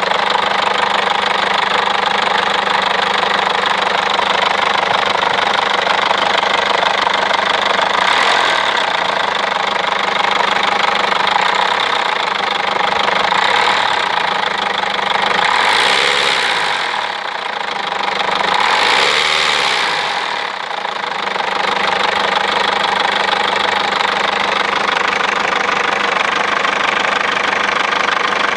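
Peugeot 307 1.6 HDi four-cylinder turbodiesel engine running with a loud, knocking clatter, revved twice about halfway through, its pitch rising and falling back each time. The owner says the engine has been this noisy, and weak in first and second gear, since a used cylinder-head part, a new timing belt and a new water pump were fitted.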